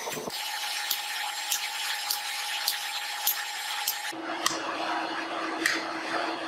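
Hammer blows on red-hot steel at the anvil, a sharp strike about every 0.6 seconds, over a steady hum and hiss. About four seconds in, the hum drops to a lower pitch and the strikes come further apart, falling on a chisel held to the hot bar.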